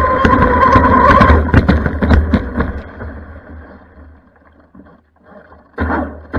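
Pro Boat Blackjack 42 RC catamaran's brushless electric motor whining at speed over the rush of water on the hull. About a second and a half in the motor cuts off, water splashes against the hull as the sound fades almost to nothing, and the motor whine comes back suddenly near the end.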